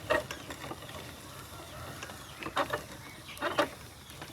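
Hand-cranked mill grinding peanuts into coarse pieces: a steady grinding rumble with a few sharp squeaks from the mechanism, one at the start and two near the end.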